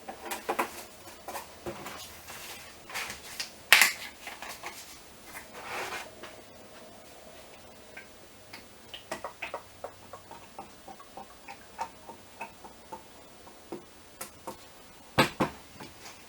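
Plastic oil jug and measuring cup being handled while motor oil is measured out and poured: scattered clicks and knocks, two louder knocks about four seconds in and near the end, and a run of small light ticks in between.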